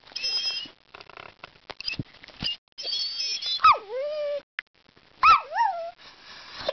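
A dog 'talking': thin high whines, then a few short yowls that drop sharply in pitch and swing back up. Soft clicks fall between them.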